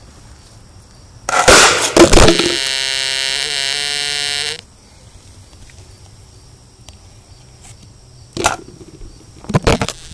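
A firecracker goes off about a second in: a loud bang and crackle, followed by a steady buzzing tone for about two seconds that cuts off suddenly. A few sharp knocks come near the end.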